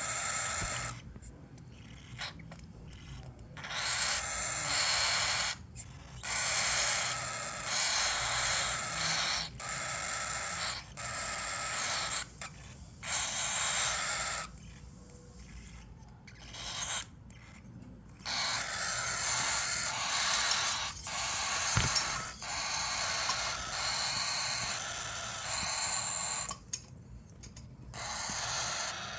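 Cockatiel chicks' raspy, rhythmic food-begging calls during hand-feeding, in repeated bouts of one to two seconds with short pauses between.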